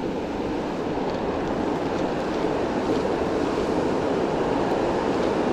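Steady rushing of river water, an even hiss-like roar with no breaks.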